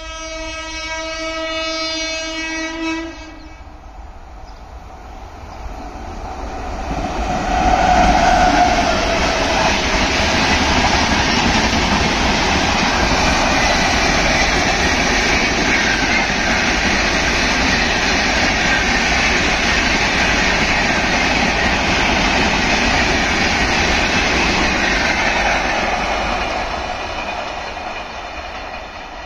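WAP-7 electric locomotive sounding one long, steady horn blast for about three seconds, then the Rajdhani Express's LHB coaches rushing past at speed with wheel clatter, the noise building about five seconds in and fading near the end as the train moves away.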